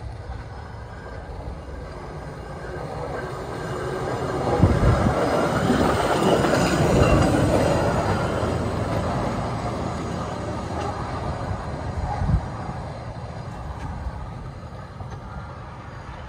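Hy-rail Ford Super Duty pickup truck running on its rail guide wheels along the track, growing louder as it approaches, passing close by and then fading as it moves away. There is a short thump about four and a half seconds in and another around twelve seconds in.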